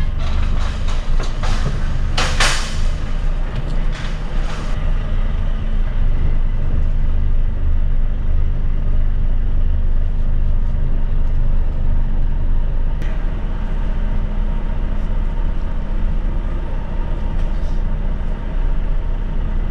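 Lorry's diesel engine running steadily, heard inside the cab as a constant low drone while driving. A few short hisses come in the first few seconds, the strongest about two seconds in.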